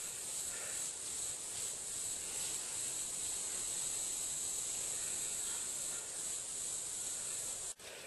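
Steady, high-pitched chorus of insects in autumn woodland. It breaks off for an instant near the end.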